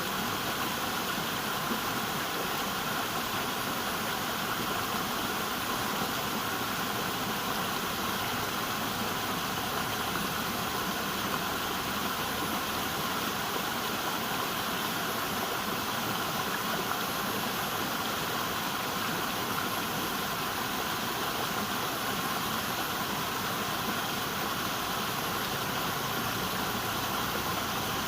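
River water rushing steadily, an even hiss with no single splashes standing out.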